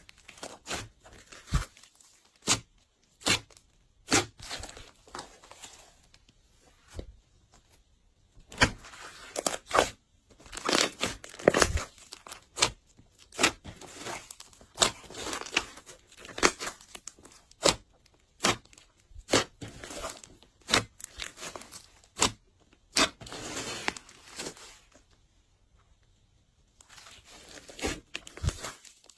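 Glossy slime being squished and stretched by hand, giving irregular sharp pops and crackles with short sticky tearing sounds between them.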